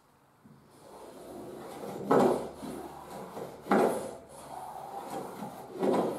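Three short scraping strokes of a small hand plane pushed along a wooden batten, shaving it down: one about two seconds in, one near four seconds and one near six.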